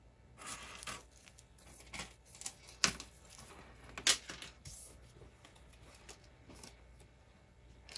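Small pieces of costume jewelry being handled: soft rustling with scattered light clicks, two sharper ones about a second apart near the middle.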